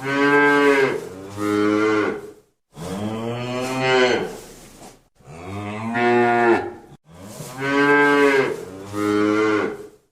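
A cow mooing repeatedly: about six drawn-out, loud calls, each a second or two long, with short breaks between them.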